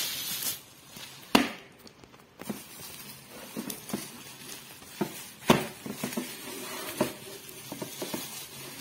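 Plastic bubble wrap rustling and crinkling as it is pulled off a plastic RC car remote control, with scattered sharp clicks and knocks from handling it. The two loudest knocks come about one and a half seconds and five and a half seconds in.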